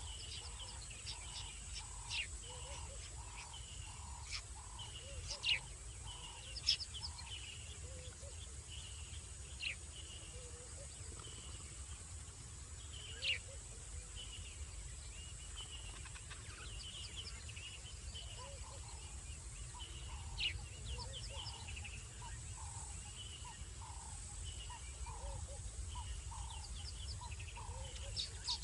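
Night chorus of calling frogs and insects at a waterhole: short notes repeated about twice a second, fading out mid-way and returning, over a steady high insect tone, with scattered sharp chirps and a low steady hum underneath.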